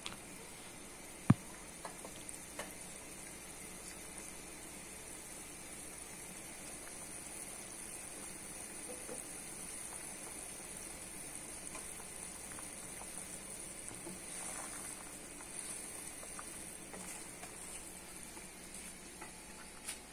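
Fish curry simmering in a pan on a gas burner, a faint steady bubbling hiss. A single sharp click comes about a second in.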